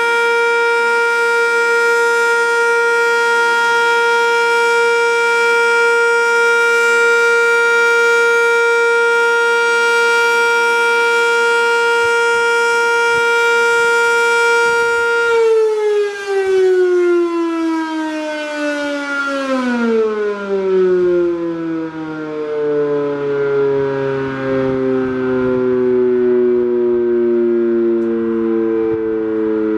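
Sentry 7V8 outdoor warning siren sounding a steady alert tone, which is the weather signal. About halfway through it winds down, its pitch falling away as the rotor slows.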